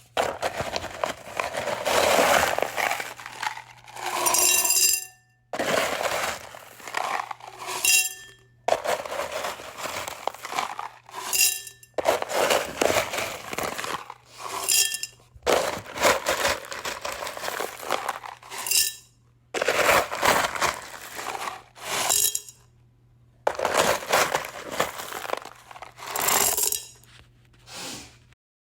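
Small rocks scooped up and poured into a glass container, about eight times over: each pour is a dense rattle of stones, ending in a few ringing clinks as the last stones strike the glass.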